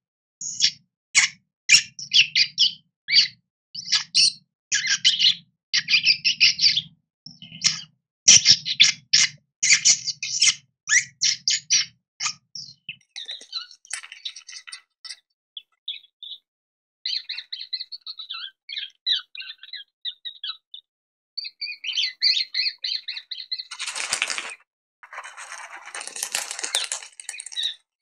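Rodents squeaking: a fast run of high, chirpy squeaks for about the first dozen seconds, then sparser, thinner squeaks, with two short bursts of rustling near the end.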